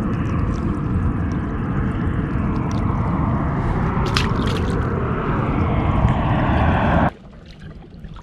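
Loud, steady rushing and sloshing of water close to the microphone, cutting off abruptly about seven seconds in.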